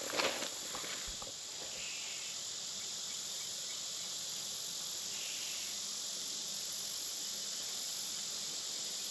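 Steady, high-pitched insect chorus droning without a break, with a brief rustle at the start.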